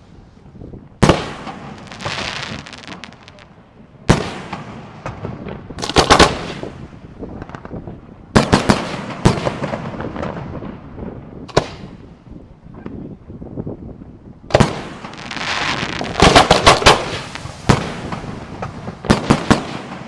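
Aerial fireworks shells bursting: sharp bangs every one to three seconds, some in quick doubles and triples, with a crackling hiss after several bursts and a rumble carrying on between them.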